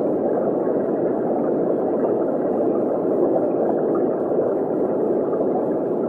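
Steady, muffled underwater rush of aquarium water, an even low wash with no separate bubbles or splashes standing out.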